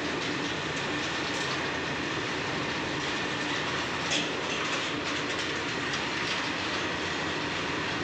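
An Indian Railways goods train of covered steel wagons running past at speed: a steady rumble of wheels on rail with scattered clicks and clatter, and one brief louder clank about four seconds in.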